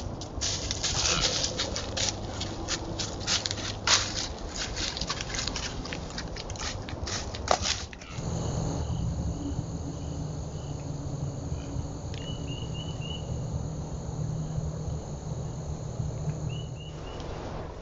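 Irregular crackling and rustling, like movement through dry leaves, for the first half. It then gives way abruptly to a steady outdoor drone of insects with a few quick runs of chirps.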